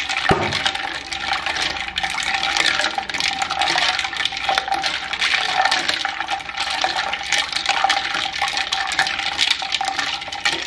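Ice cubes clinking against the bowl and milk sloshing as a spatula stirs an iced milk-and-rose-syrup drink: a continuous rattle of small clicks and splashes.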